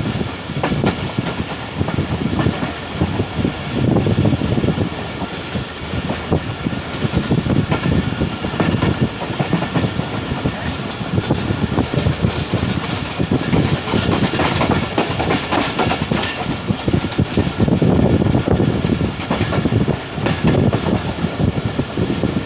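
45 Up Pakistan Express passenger train running on the rails: a steady rumble of wheels on track with clickety-clack from the rail joints.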